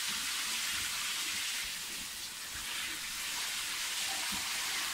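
Handheld shower head spraying a steady hiss of water onto a chow chow's thick coat, rinsing mud out of the fur.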